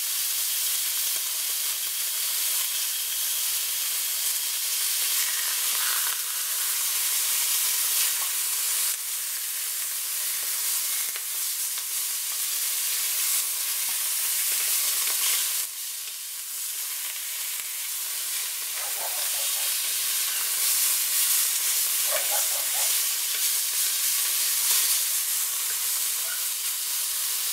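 Beef steaks sizzling steadily in a very hot roasting pan that keeps frying after its hob is switched off. A wooden spatula moves the steaks now and then.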